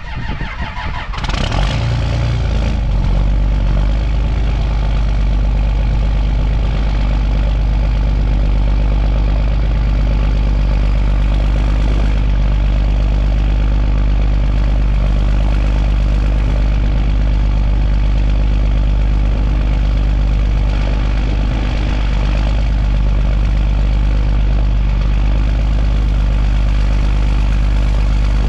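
Pickup truck engine cold-started at about 20 °F: the starter cranks briefly, the engine catches about a second in, then idles steadily.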